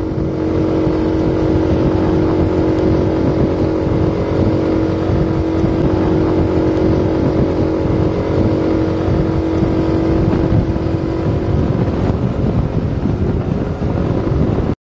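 A vehicle running steadily at speed: a constant hum over road and wind noise, which cuts off abruptly near the end.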